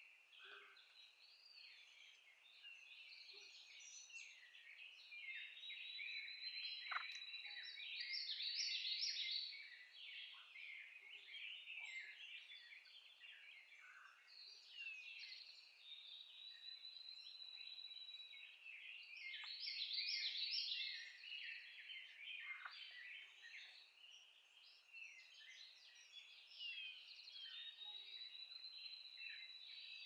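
Faint dawn chorus of many songbirds singing together, thick overlapping chirps and trills, with one long thin whistle that rises slightly, repeating about every ten seconds.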